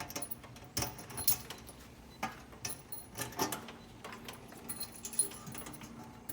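Irregular small metallic clicks and clinks, about a dozen spread unevenly, from tools and parts being handled on a continuous inkjet printer, over a faint steady hum.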